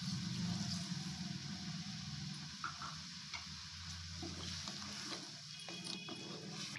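Milk and sweet potato slices simmering in a kadhai with a steady hiss as sugar is poured in, then a spatula stirring, scraping and knocking against the pan a few times in the second half.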